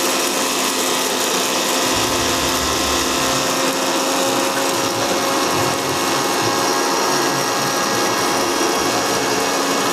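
Electric kitchen mixer grinder running steadily at full speed, dry-grinding dried red chillies, rice, poppy seeds and peppercorns into a powder.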